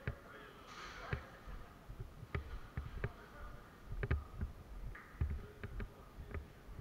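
Footsteps and gear of a player moving through an indoor airsoft course: irregular low footfall thumps mixed with scattered sharp clicks and knocks.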